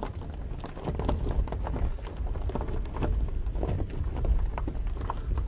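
Wind rumbling on the microphone of a handheld camera, with irregular footsteps on a dirt track.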